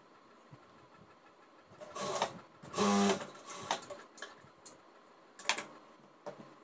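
Cloth being handled and cut with tailor's shears on a sewing table: a rustle, a louder half-second sound with a brief tone in it, then several sharp snips and clicks.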